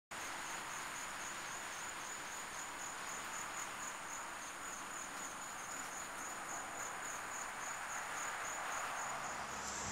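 Insect chirping: a faint high-pitched pulse repeating about three times a second over a steady hiss.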